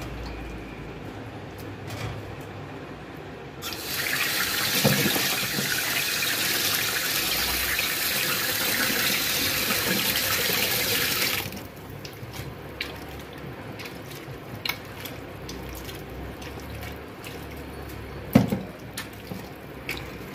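Kitchen tap running into a steel bowl of chopped goat tripe in a stainless steel sink, a cold-water rinse of the tripe, for about eight seconds before being shut off. Before and after it, hands squish and slosh the wet pieces in the bowl, with a sharp knock near the end.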